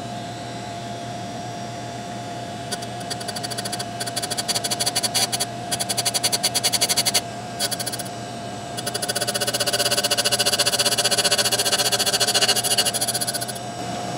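Tool and cutter grinder running with a steady hum while its wheel grinds relief on a lathe parting blade held in a fixture. A rapid, pulsing grinding rasp starts about three seconds in, breaks off briefly around seven seconds, then resumes more densely and stops near the end.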